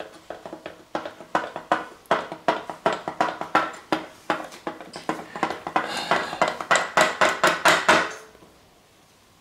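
Quick run of small clicks and knocks, about four or five a second, from the hard parts of a motorcycle's Nissin rear brake master cylinder and its fluid reservoir being worked by hand. The clicks get denser about six seconds in and stop about a second before the end.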